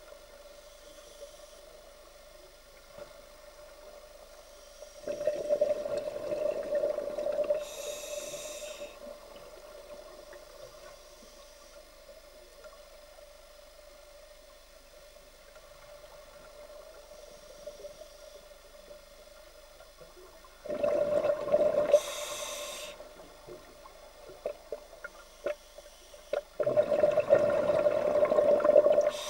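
A scuba diver breathing through a regulator, heard underwater: three exhalations as rushing bubble bursts, about five seconds in, about twenty-one seconds in and near the end, each lasting two to three seconds. There is a short high hiss after the first two, over a faint steady hum.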